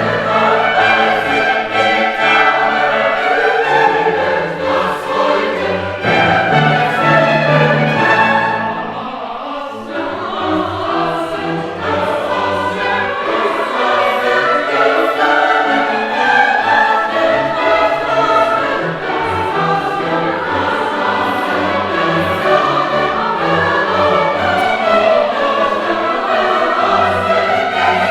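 A choir singing classical music with instrumental accompaniment. The music eases off briefly about nine seconds in.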